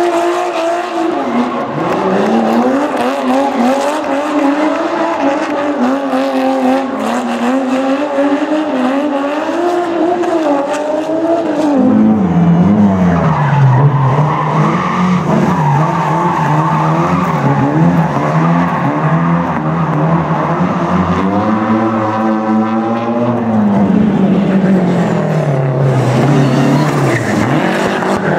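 Rally car engines revving hard and dropping back again and again as the cars are thrown sideways in drifts, with tyre squeal. About twelve seconds in, a deeper, louder engine note takes over.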